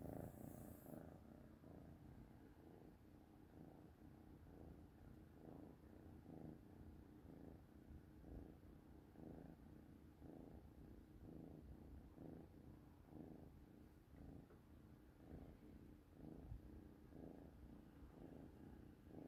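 Kitten purring faintly and steadily close by, a low rumble swelling and fading with each breath in and out.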